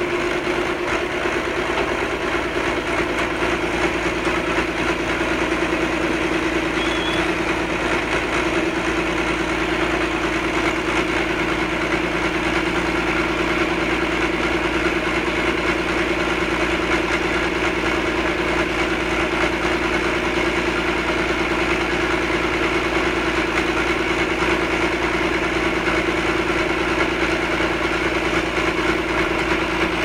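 Diesel engine of timber-loading machinery running at a steady speed, with a constant droning tone and no revving.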